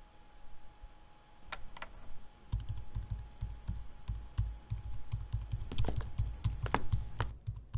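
Typing on a laptop keyboard: a few single keystrokes, then from about two and a half seconds in a fast run of key clicks with dull thumps.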